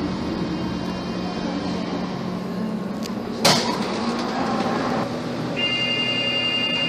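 Interior of a Tatra T3 tram: steady running noise with a low hum, a single sharp knock about halfway through, then near the end the steady high-pitched buzz of the old door warning that goes with the lit 'NEVYSTUPUJTE' lamp.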